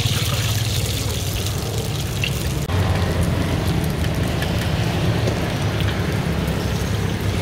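Mini martabak telur (lumpia-wrapper parcels) deep-frying in a wok of oil: a steady sizzle with many small crackles, over a steady low hum.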